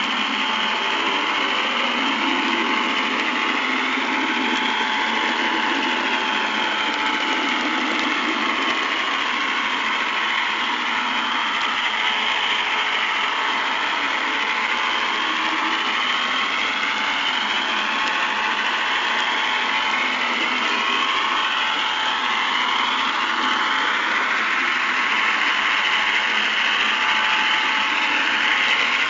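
Model train running along the track, heard close up from on board: a steady whirr of the small electric motor and gearing with wheel noise, its whine sliding up and down in pitch as the speed changes.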